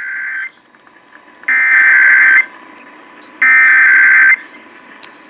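Emergency Alert System digital header (SAME code) broadcast over AM/FM radio: three bursts of buzzy data tones, each about a second long and about a second apart, with the first already under way at the start. These bursts encode the Required Monthly Test alert that comes ahead of the attention tone.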